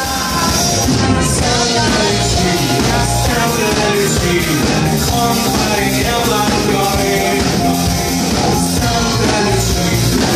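Live rock band playing a song: a male singer over electric guitar, keyboards and drums, loud and continuous.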